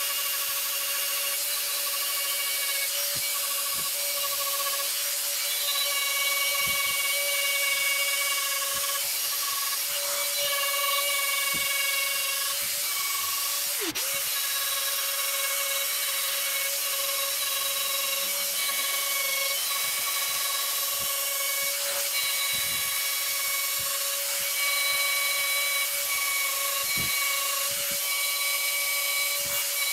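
Handheld electric rotary tool running at a steady high whine, its small burr grinding a dimpled texture into a wooden disc. Short scratchy touches come again and again as the bit is pressed into the wood and lifted.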